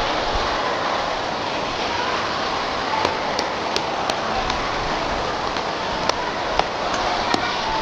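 Steady murmur of a large crowd with faint voices in it, and a few sharp clicks scattered through the second half.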